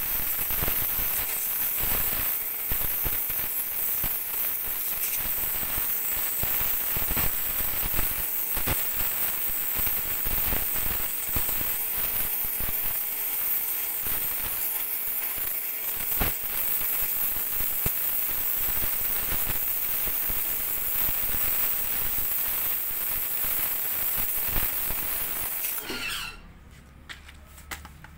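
Dense crackling made of many irregular sharp clicks over a steady hiss, which cuts off abruptly near the end.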